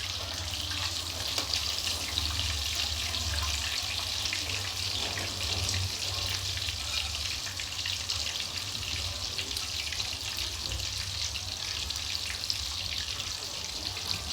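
Breaded chicken pieces frying in hot oil: a steady sizzle with fine crackles, over a low steady hum.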